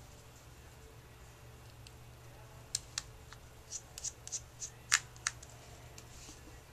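A run of small sharp clicks and taps from the iPhone 3G and small repair tools being handled on a workbench, starting a little under three seconds in and ending about two and a half seconds later, with one louder click near the end of the run. A faint steady low hum runs underneath.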